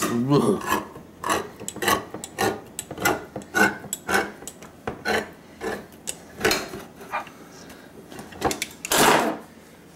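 A metal food can being cut open with a knife: a series of short scraping and cutting strokes, about one or two a second, with a longer, louder stroke near the end.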